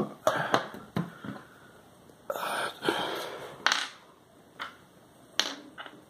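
Small clicks and knocks of a screwdriver and a mini PC motherboard with its metal heat sink being handled and set down on a wooden desk, with a short scraping rustle a little over two seconds in.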